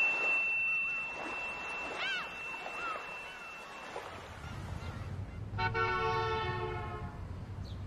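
A steady high tone with a few short rising-and-falling chirps, then a low vehicle rumble comes in about four seconds in, and a vehicle horn sounds once for about a second and a half near the end.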